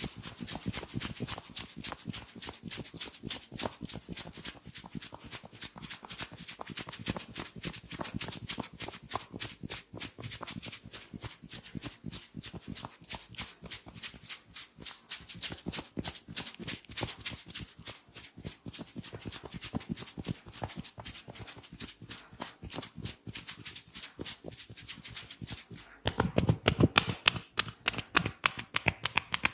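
Hair cracking during a head massage: a fast, steady run of sharp crackling snaps as hands tug and rub the hair against the scalp. Near the end the snaps turn louder and heavier.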